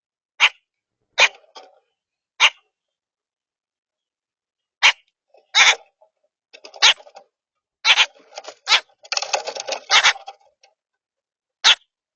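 Common grackles giving short harsh chack calls, about a dozen at irregular intervals, crowding into a quick run of calls about nine seconds in.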